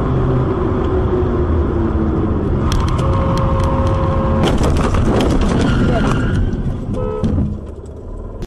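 Road and engine noise inside a moving car, with a car horn sounding steadily for about a second and a half around three seconds in. A run of sharp knocks and clatters comes over the following few seconds.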